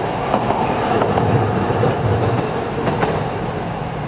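A tram passing through a level crossing, running on over the rails with a low rumble that swells and then eases off. The crossing's warning bell rings continuously.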